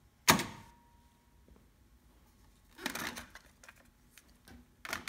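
Onkyo TA-1500 cassette deck ejecting: one loud, sharp clack as the cassette door springs open, then a short plastic rattle of the cassette being pulled out about three seconds in, and a couple more sharp clicks of handling near the end.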